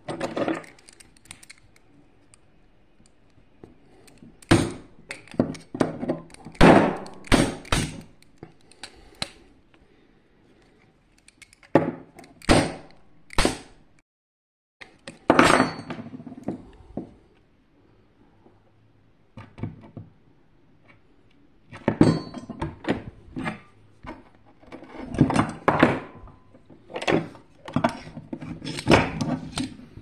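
Metal parts of a dismantled vacuum cleaner motor (armature, steel bracket, stator housing) being handled, knocked together and set down on a wooden desk: irregular clusters of sharp knocks and clinks with quieter gaps between them.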